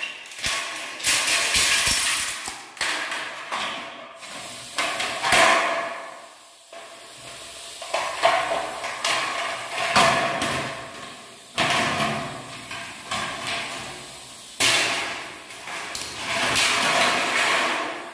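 Tin snips cutting galvanized perforated metal angle bead, the metal strips clinking and rattling as they are handled: a series of sharp metallic snips and clanks, each dying away over a second or so.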